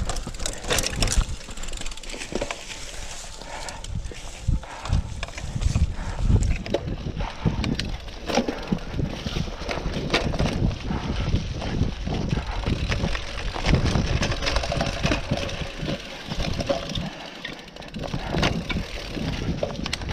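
Cyclocross bike ridden over a bumpy, leaf-covered dirt trail: tyres rolling through leaves and dirt while the bike rattles and clatters with frequent sharp knocks over the bumps.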